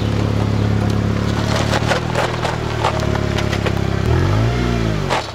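Ford Ranger pickup's engine running steadily as the truck drives off, then revving up and back down once near the end, with scattered clicks and scrapes over it.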